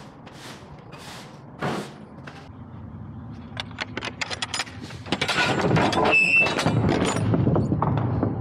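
Broom sweeping out a semi-trailer in steady strokes about every half second, giving way to a run of knocks and rattles that grows loud, with a brief high squeal about six seconds in.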